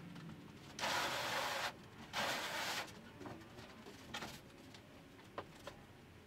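A rigid foam roof panel sliding and scraping across the tops of the trailer's foam walls in two pushes, each less than a second long, followed by a few light knocks.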